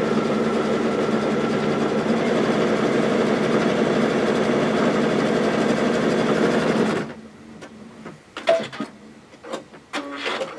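Electric sewing machine running steadily as it stitches a long diagonal quilting line through layered flannel. It stops abruptly about seven seconds in, followed by a few short, faint clicks.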